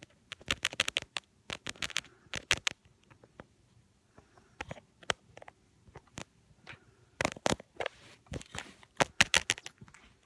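Irregular bursts of sharp clicks and scratches from a capuchin monkey's hands handling a phone right against its microphone, in clusters with short quiet gaps between.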